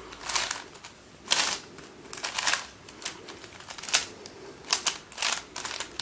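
Plastic layers of a 3x3x5 Fisher Cuboid twisty puzzle clacking as they are turned, with about eight quick, unevenly spaced turns.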